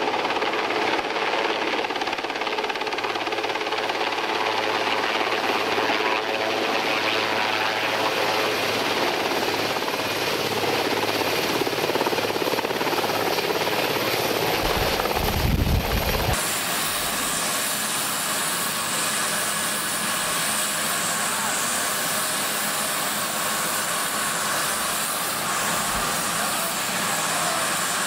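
Marine One, a Sikorsky VH-3 Sea King helicopter, hovering and lifting off close by: loud, dense rotor and turbine noise, with a heavy rumble of rotor wash buffeting the microphone just before the sound changes abruptly about halfway through to a steadier helicopter drone.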